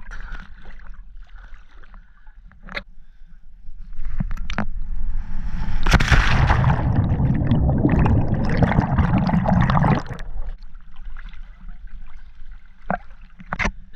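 Lake water splashing and churning close to the camera, loud for about six seconds in the middle, with a few sharp knocks before and after.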